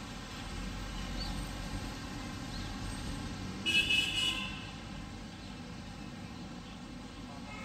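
Steady outdoor background hum with low rumble, broken about halfway through by a vehicle horn sounding briefly in a few quick toots.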